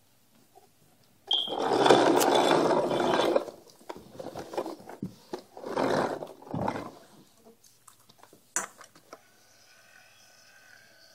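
Play with a toy garbage truck: a loud, rough rushing noise for about two seconds, then two shorter ones, and a sharp click near the end.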